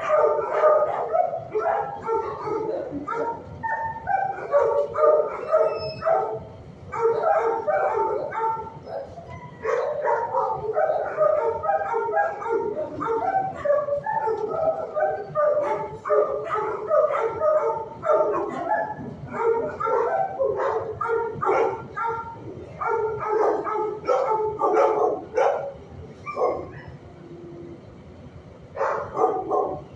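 Dog barking over and over in quick runs, the barks thinning out near the end.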